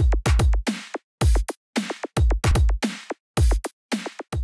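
Electronic drum-machine beat: heavy low kick hits with sharp upper hits, a few a second in an uneven, stop-start rhythm.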